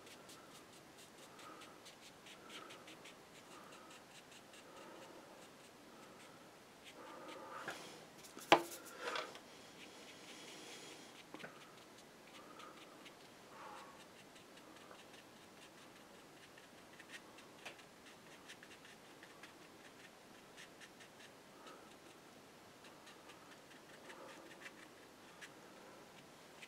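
Paintbrush working thick paint on paper: faint, soft dabbing and scratching strokes repeating, busier for a couple of seconds with one sharp tap about eight and a half seconds in.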